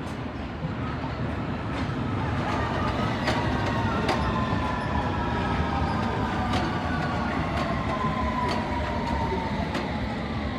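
A train moving through the station: a steady rumble with sharp clicks from the wheels crossing rail joints, and a whine that falls slowly in pitch as the train slows.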